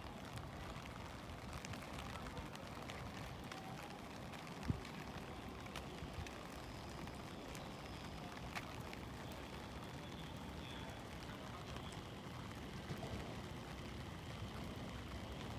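Faint, steady outdoor ambience on a wet station platform: a low rumble with scattered light ticks like dripping water, and one sharp click about five seconds in. The rumble grows slightly near the end as a train approaches.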